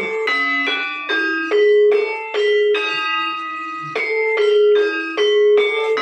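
Instrumental interlude: a melody of struck, bell-like metal notes, about two a second, each ringing on until the next, with a short pause midway.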